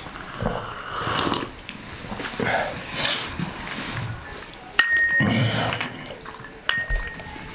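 Sipping from a china tea bowl, then two sharp clinks of china with a short ring, about two seconds apart, over faint voices.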